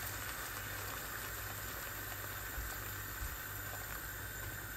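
Hot water poured in a steady stream into a pan of sautéed chili-paste sauce, running and bubbling into the liquid.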